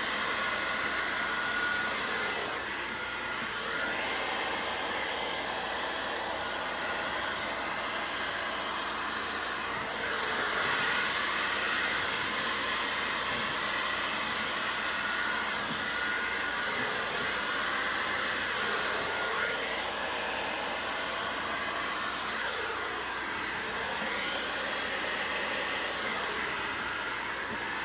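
Handheld hair dryer running steadily, a rushing blow of air with a faint whine in it, used to blow poured acrylic paint across a canvas. It gets a little louder about ten seconds in.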